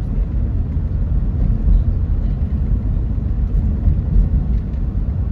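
Steady low rumble of a car driving in traffic, heard from inside the cabin: road and engine noise with no sudden events.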